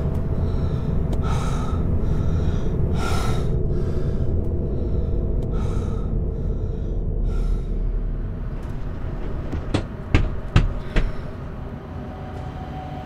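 A woman gasping and breathing hard, about one laboured breath a second, in distress from the heat, over a steady low rumble. About ten seconds in come three or four sharp knocks, the loudest sounds.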